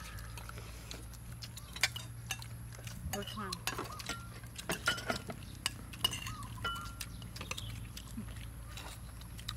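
Spoons and cutlery clinking and scraping on plates and bowls while people eat, in many short irregular clicks.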